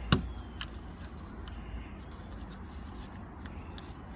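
A single sharp knock just after the start, then a few faint light ticks over a steady low rumble.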